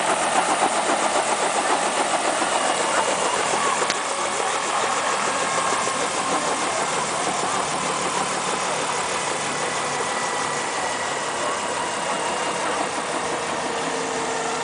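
Light two-bladed piston helicopter running on the ground, engine and main rotor turning at idle.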